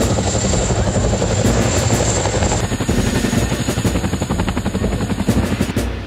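CH-47 Chinook tandem-rotor helicopter running, its rotor blades chopping in a fast steady beat.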